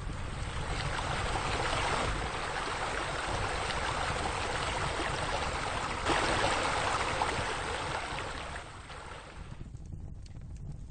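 Rushing, splashing water from pool water features. It swells in, jumps louder about six seconds in, and fades away near the end.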